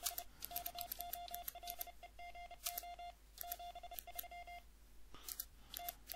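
Morse code sent by a K3NG Arduino keyer emulating a WinKeyer, heard as a single-pitch sidetone beeping out dots and dashes as text is typed into the logging program. Most of the sending falls in the first four and a half seconds; after that come only a few short elements. Soft computer-keyboard key clicks run alongside.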